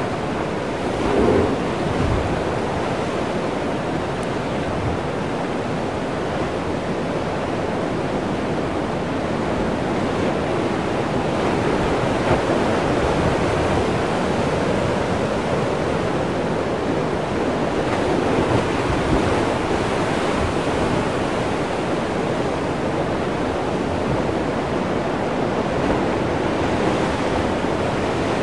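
Ocean surf surging and crashing through a narrow rocky chasm, a steady wash of churning white water with a brief louder surge about a second in.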